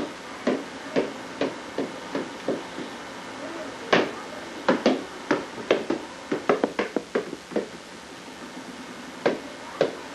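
Irregular sharp knocks and taps on a hard tiled floor from a toddler playing there. There are more than a dozen: scattered at first, then a quick run of them in the middle, and two more near the end.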